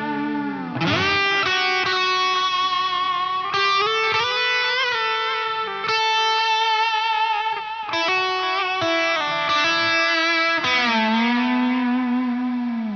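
Overdriven electric guitar played through a Line 6 Helix ambient preset: single sustained notes picked every second or two, with string bends and vibrato, ringing on into reverb and delay.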